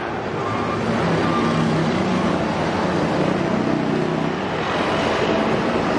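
Road traffic passing close by: a steady mix of engine hum and tyre noise from a coach and cars at a junction, with a car driving past near the microphone.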